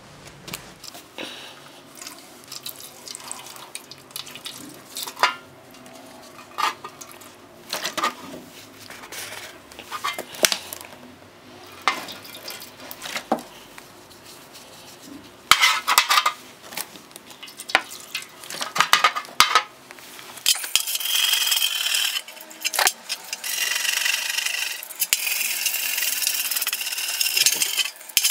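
Scattered metal clinks and light knocks as an old steel hammer head and tools are handled in a steel tray. About two-thirds of the way in, a steady harsh scratching starts as a hand wire brush scrubs the hammer head.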